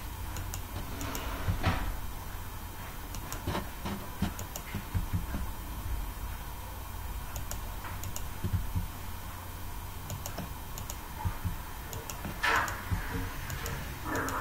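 Scattered clicks of a computer mouse and keyboard keys over a steady low hum, with a short burst of hiss near the end.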